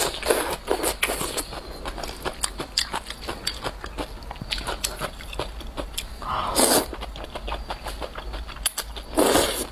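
Close-miked eating of wide sesame-paste noodles (mianpi): a steady run of small wet chewing and mouth clicks, with three louder slurps as strands are sucked in, at the start, about six and a half seconds in, and near the end.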